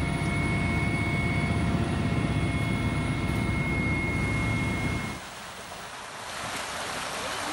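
Helicopter cabin noise: a steady, dense engine-and-rotor drone with a high thin whine. It cuts off suddenly about five seconds in, and a steady rush like fast-flowing floodwater takes over.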